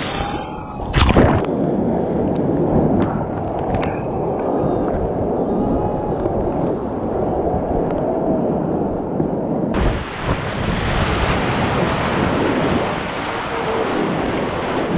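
Rushing whitewater of a river rapid with wind on the microphone, with a few sharp knocks about a second in. The noise sounds muffled at first, then turns much brighter and fuller about ten seconds in.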